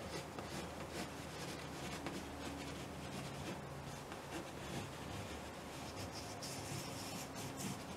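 Water-soluble wax crayon scratching faintly across a canvas in a series of short strokes as lines are sketched.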